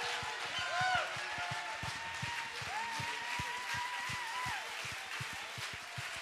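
Congregation clapping, scattered claps several a second, with a few voices calling out in long held tones over the applause.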